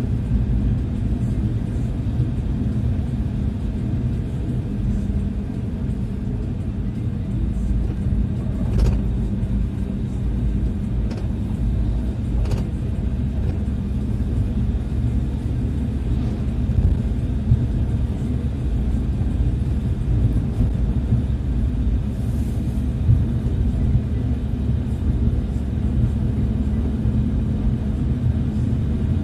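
Minibus on the move: steady low engine and road rumble, with a couple of light knocks about nine and twelve seconds in.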